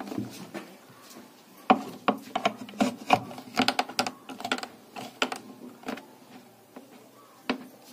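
Irregular light clicks and knocks of hard plastic as a mixer grinder's broken motor coupler is worked by hand on its shaft after being heated with a candle. The coupler is still stuck. The clicks come in a quick run and thin out near the end.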